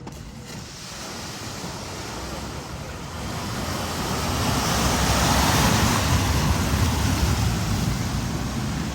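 A car driving through deep ford water: a rush of surging, splashing water over a low rumble, building to its loudest about halfway through and then easing.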